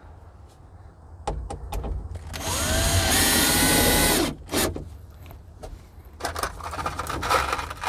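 Cordless drill driving a screw through a plywood board. The motor whine rises as it spins up about two and a half seconds in, runs steadily for about two seconds and stops abruptly. A few light knocks and clicks come before and after it.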